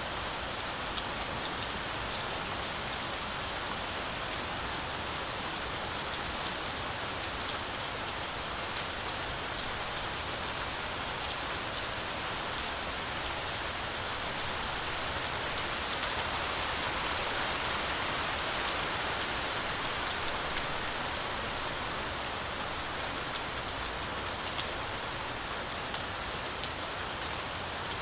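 Heavy, steady rainfall pattering on forest foliage, a dense even hiss with scattered individual drop ticks, swelling slightly louder about halfway through.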